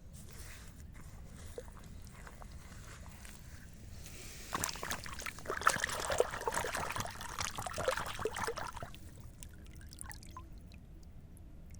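Water trickling and splashing for about four seconds, starting about four and a half seconds in, as a dense patter of small crackles.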